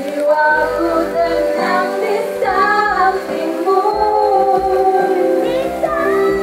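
Music with a female voice singing a melody, with long held notes.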